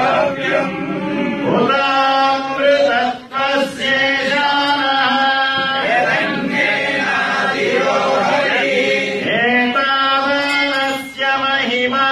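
Several men's voices chanting a hymn together in long held phrases with slow pitch slides, each phrase a few seconds long with a brief pause for breath between.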